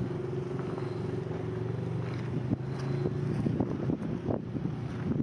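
A car engine running steadily, with wind buffeting the microphone. The engine's steady note fades about three seconds in as the wind noise grows.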